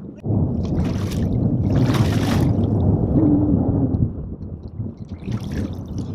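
Water splashing beside a boat hull as a hooked barramundi is brought alongside and lifted out by hand, with the loudest splashes about one and two seconds in, then quieter dripping and sloshing.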